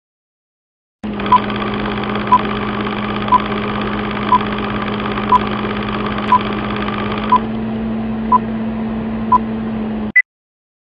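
Film countdown leader sound effect: a steady mechanical whir with a low hum, a short beep once a second, nine in all, then a higher blip just before it cuts off. The whir thins somewhat about seven seconds in.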